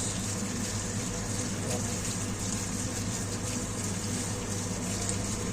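Steady low hum with an even rushing noise over it, typical of kitchen machinery running.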